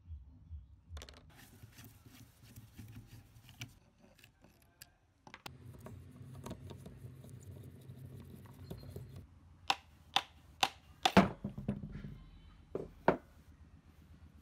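A punch tapped with a hammer to drive the armature out of a Makita 4100NB cutter's motor housing: a run of about eight sharp knocks in the last few seconds, loudest around the middle of the run. Before that, faint scraping and handling of the parts over a low background rumble.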